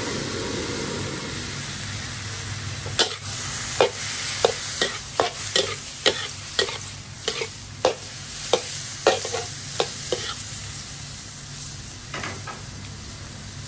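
Squid with satay paste sizzling in a hot steel wok as it is stir-fried. From about three seconds in to about ten seconds in, the stirring utensil knocks and scrapes against the pan about twice a second; the sizzle carries on steadily after the stirring stops.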